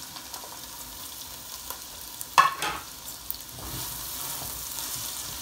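Finely chopped onion sizzling in hot oil in a non-stick pot while a silicone spatula stirs it, with a brief louder scrape about halfway through.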